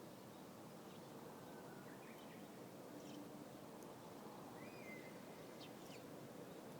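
Small wild birds chirping faintly over a steady background hiss: scattered short, high calls and one brief whistled note about halfway through.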